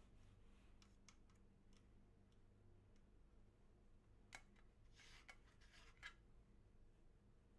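Near silence with faint plastic ticks and scraping from a disposable plastic spreader working across an agar plate in a plastic Petri dish. A few light ticks come in the first couple of seconds, and a short run of clicks and scraping comes about four to six seconds in.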